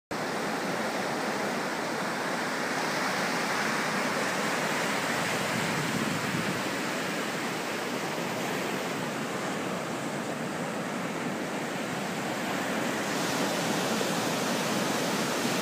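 Ocean surf breaking and washing up onto a sandy beach, a steady rush of water and foam.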